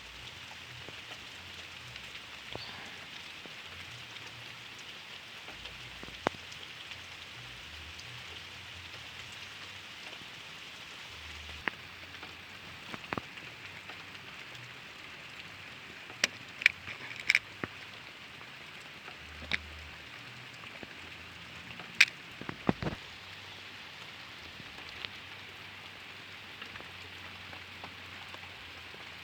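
Steady rain falling, with a dozen or so sharp ticks of drops scattered through it, several close together in the second half.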